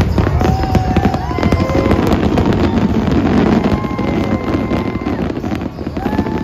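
Fireworks going off in a barrage: rapid sharp bangs at first, then a dense crackling from the bursting shells, easing off near the end.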